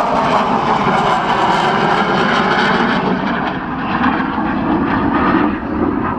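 Loud jet noise from a Eurofighter Typhoon's twin EJ200 turbofan engines during a display flypast. The high hiss thins out from about halfway through while the low roar carries on.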